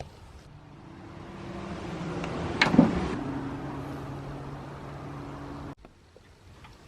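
A motor vehicle's engine running, growing louder over about two seconds with a short click at its loudest, then slowly fading before cutting off abruptly about a second before the end.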